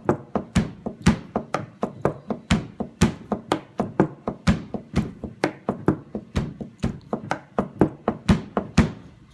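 A hand-played percussion beat: steady rhythmic strokes, strong ones about twice a second with lighter taps between, keeping time between sung verses.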